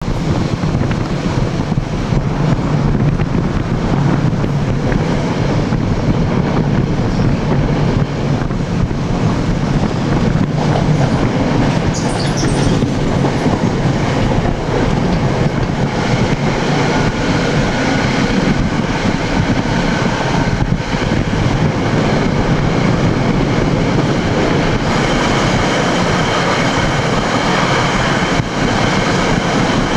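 NJ Transit commuter train running at speed, heard from the vestibule between cars through an open window. Its wheels and rails give a loud, steady rumble with occasional knocks over rail joints, and a brief high squeal comes about twelve seconds in.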